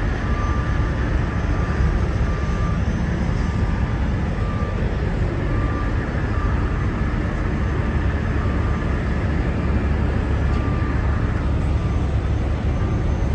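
Steady low rumble of diesel truck engines idling, with a faint high beep repeating about once a second.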